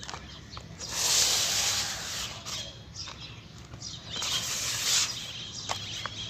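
Very soft cement being smashed and crumbling: two crumbling bursts, each about a second long, with small crackles and ticks between them.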